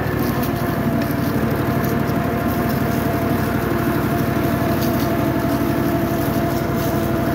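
Garden tractor engine running at a steady speed while towing a loaded wooden wagon, its firing a fast even pulse under a steady hum.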